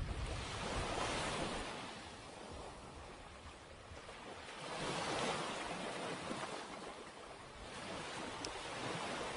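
Rushing outdoor noise that swells and eases about three times, like surf washing in or gusts on the microphone.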